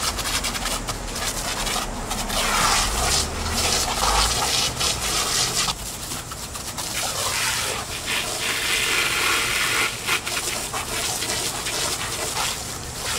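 Garden hose spray nozzle spraying water onto fur costumes: a continuous hiss and spatter that swells and dips as the spray moves.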